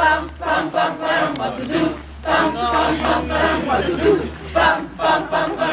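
A group of people chanting and shouting together, with loud peaks about two to three times a second.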